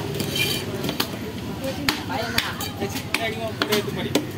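A heavy fish knife chopping into a trevally on a wooden chopping block: several sharp, irregularly spaced chops and knocks.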